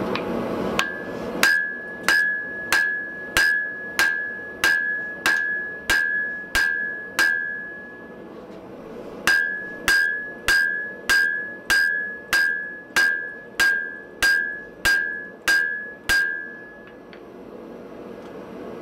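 Hand hammer striking a glowing wrought-iron bar held upright on the anvil, in a steady rhythm of about one and a half blows a second. Each blow leaves a clear, high anvil ring. There are two runs of about a dozen blows, with a pause of about a second between them just past halfway.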